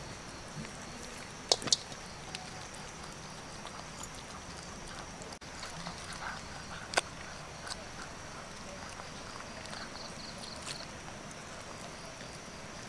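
A dog chewing duck scraps and bones off a woven bamboo tray: soft irregular ticks and a few sharp cracks, two close together about a second and a half in and one about seven seconds in, over a steady background hiss.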